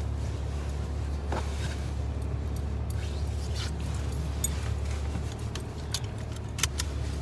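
Steady low rumble of a car heard from inside the cabin, with a few short sharp clicks near the end as things are handled.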